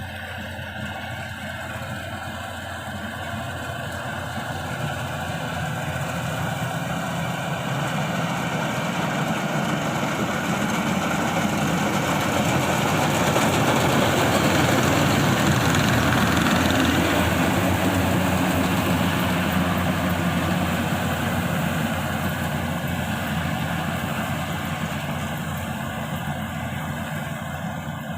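Yanmar YH850 rice combine harvester running as it works, a steady engine-and-machinery drone. It grows louder to a peak about halfway through, then fades as it moves away.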